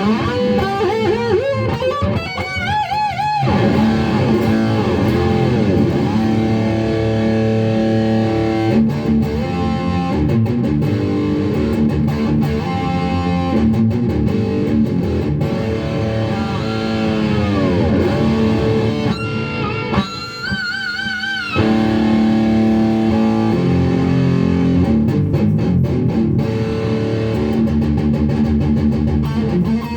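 1985 Kramer Baretta electric guitar played through an amp: riffs and sustained notes bent with the whammy bar, warbling vibrato and several deep pitch dives that swoop back up.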